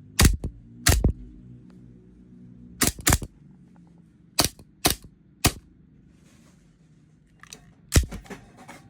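Gas blowback airsoft pistol, a Hwasan 7.0 Hi-Capa firing 6 mm BBs, shot semi-auto one round at a time. About nine sharp cracks of the slide cycling come at uneven gaps of a fraction of a second to two seconds.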